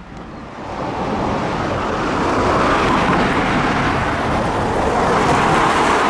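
Road traffic passing close by on a highway: tyre and engine noise that builds over about two seconds and then holds loud and steady.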